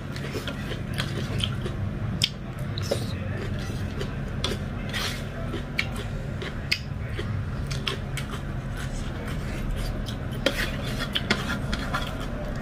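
Eating by hand: wet chewing and lip smacks, with fingers scooping dhido and chicken curry off a steel plate, heard as a scatter of short clicks and smacks.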